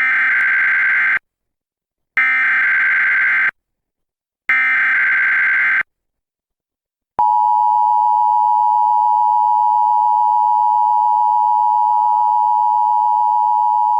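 Emergency Alert System SAME header: three identical bursts of screechy data tone, each just over a second long with a second's gap between them, marking the start of a Required Monthly Test alert. About 7 s in, the EAS two-tone attention signal (853 and 960 Hz together) begins and holds steady.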